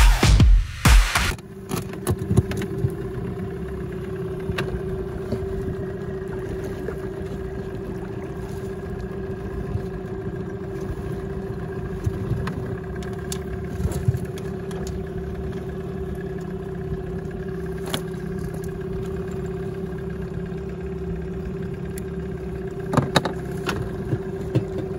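Small outboard motor on an inflatable boat running at a steady speed, heard from aboard, with a few light knocks.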